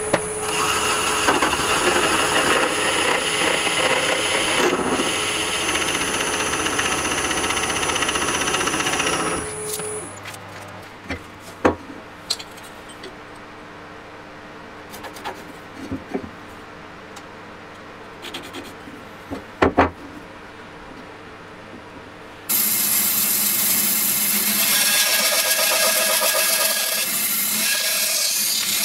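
Lathe running as a Forstner bit bores into the end of a spinning elm burl and epoxy resin blank, a steady cutting noise with a high whine, for about nine seconds. Then a quieter stretch with a few sharp knocks. About 22 seconds in, a bandsaw starts cutting through a wood-and-resin block.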